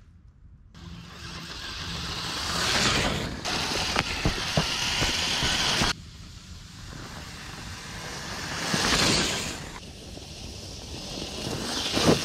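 Traxxas TRX4 RC crawler's electric motor and gears whirring as it climbs a fallen log, with scattered clicks and scrapes from the tires and chassis. The sound breaks off and changes abruptly about six seconds in and again about ten seconds in.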